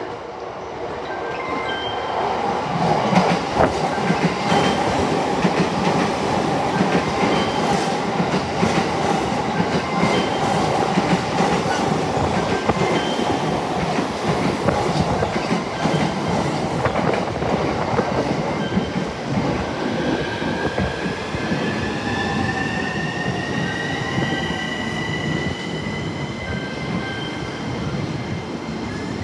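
An E231-series electric commuter train running in close past the platform, its wheels clacking over the rail joints. Through the last third a high whine rises slowly in pitch.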